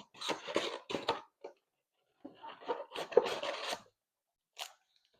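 A sealed trading-card box being opened by hand: two spells of scraping and crinkling of its wrapper and cardboard, then a single click near the end.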